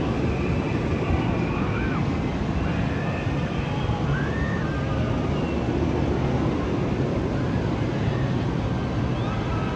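Steady wind rushing over the microphone, with faint distant voices now and then.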